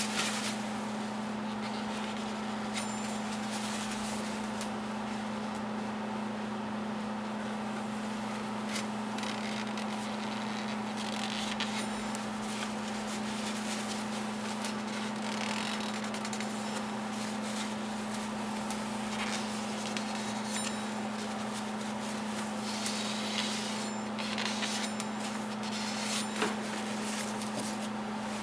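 A steady background hum, with faint, scattered rustles, scrapes and clicks from hands wiping around an engine's oil filter housing with a cloth rag.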